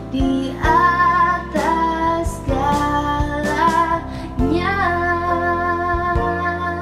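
A woman singing an Indonesian worship song in long held notes over an instrumental backing.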